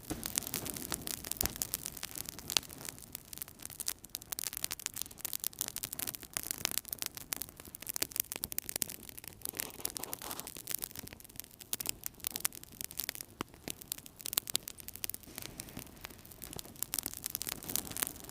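Wood fire burning in a fireplace, crackling with a dense stream of irregular sharp pops and snaps over a soft low rumble of the flames.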